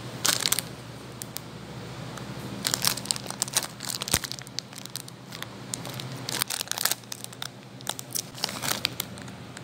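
Thin plastic snack wrapper crinkling and tearing as it is pulled open by hand, in irregular bursts.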